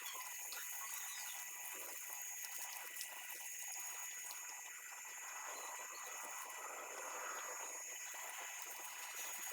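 Water spraying from a hose pipe onto a bike being washed: a steady, fairly quiet hiss of running water.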